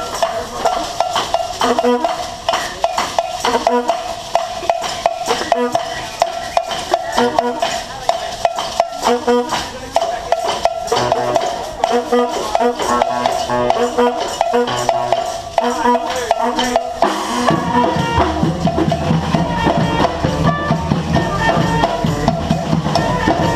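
Live street band playing drums and brass, with many quick, evenly repeating drum strokes under a held note. About seventeen seconds in, the music changes and low bass notes come in underneath.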